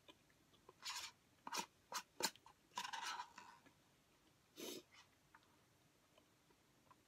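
A plastic spoon scraping inside a paper chili cup in short strokes, about six scrapes over the first five seconds.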